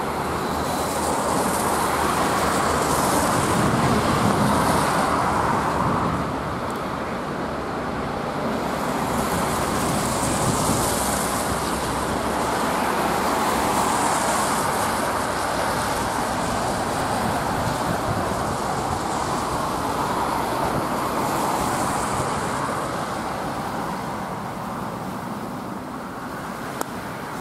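Road traffic on a wet road: the tyre hiss of several cars swells and fades as each one passes in turn.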